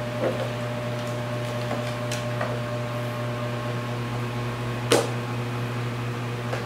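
Steady low electrical hum of a room appliance, with a few light taps and knocks, the loudest about five seconds in.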